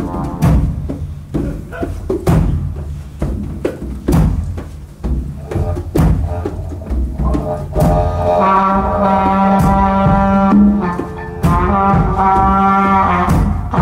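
Live percussion music: hand drums are struck in a loose pattern of deep hits. About eight seconds in, a brass horn comes in with long held notes over the drumming.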